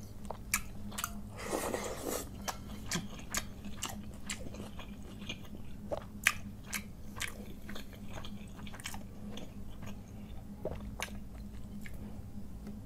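Fingers squishing and stirring panta bhat, cooked rice soaked in water, in a terracotta bowl: wet clicks and squelches, with a longer swish about a second and a half in.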